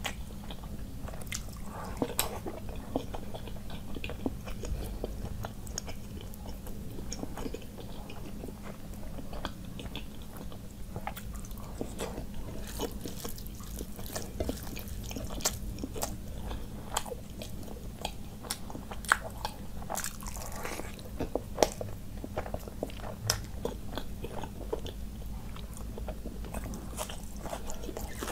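Close-miked eating sounds: chewing and biting of mouthfuls of rice and curry, with the fingers mixing rice and curry on the plate, making irregular wet clicks and crunches over a low steady hum.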